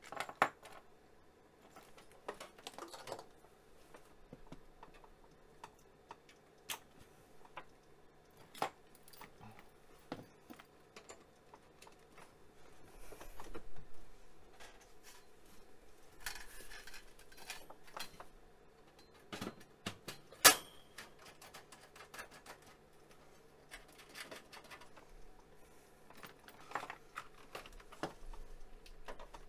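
Hands working inside an open Apple Lisa computer's metal chassis: scattered clicks, taps and rustling as parts and cables are handled, with one sharp, loud click about two-thirds of the way through. A faint steady hum runs underneath.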